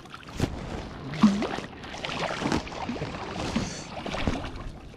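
Water splashing irregularly as a hooked steelhead thrashes at the river surface while being netted.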